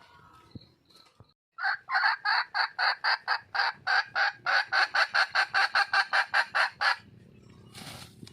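Wild red junglefowl hen calling to attract a mate: a fast run of clucking notes, about five a second, that stops after about five seconds.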